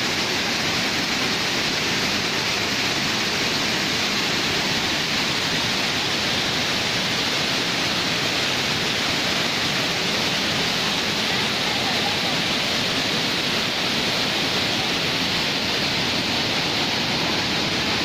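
Waterfall pouring down over rocks: a steady, even rush of falling water.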